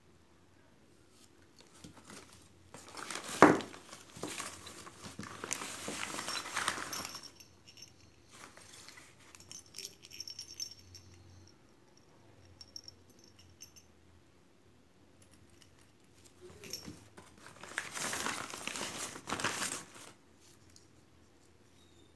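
Handling noise from small plastic figurines and keychains being picked up and turned in the hands: crinkling and rustling in two spells, with one sharp click near the start of the first and light ticks between.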